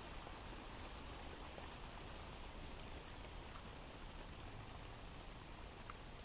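Faint, steady rain ambience from a recorded rain sound effect laid under the video as a background bed.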